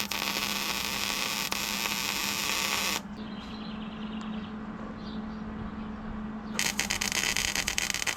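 Electric arc welding on a steel bumper: a crackling, frying weld arc for about the first three seconds, then, after a pause with a steady hum, a second weld that starts with a few stuttering crackles near the end. These are tack welds holding the bumper pieces together.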